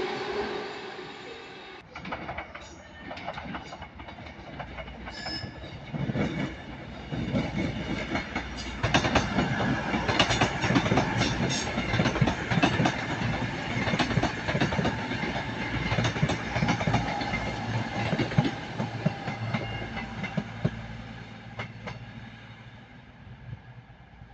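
Avanti West Coast electric passenger train passing, its wheels clattering rapidly over rail joints and points. The clatter builds about six seconds in, is loudest through the middle and fades near the end.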